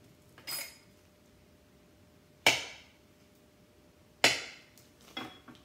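Kitchen knife chopping through a stick of butter and knocking on a hard countertop: two loud sharp knocks about two seconds apart, each with a short ringing tail, with smaller taps and clicks before and after.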